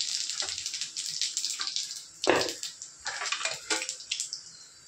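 Cumin seeds and whole spices crackling and sizzling in hot oil in a steel kadai, the tempering stage of the curry, with one louder burst about two seconds in. The crackle thins out and dies down toward the end.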